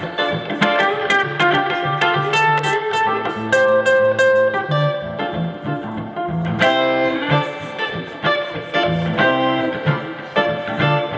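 Live band music: a guitar picking a melodic instrumental passage over a bass line, with no singing.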